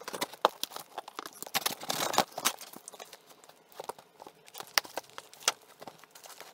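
Packing tape being cut and peeled off a cardboard box: irregular crackles, scrapes and short tearing sounds of tape and cardboard, busiest about two seconds in.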